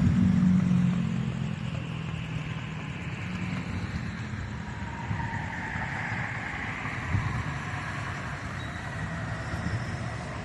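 Road traffic: steady vehicle noise with one vehicle passing, loudest about halfway through.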